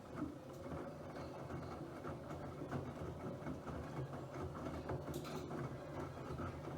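Bosch WFP3231 washing machine starting up: a low, uneven mechanical rumble with light clicks comes in at the start and keeps running, typical of the motor turning the drum.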